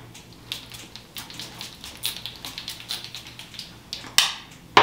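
Light clicks and taps from a small perfume bottle being handled and uncapped, then a short hiss of perfume spray near the end.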